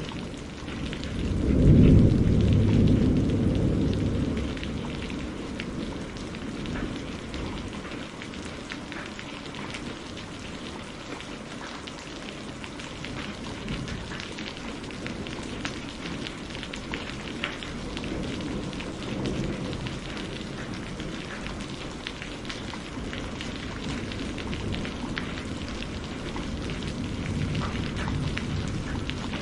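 Heavy rain falling steadily, with a loud rumble of thunder about two seconds in that fades over the next few seconds, and fainter thunder rumbles later on.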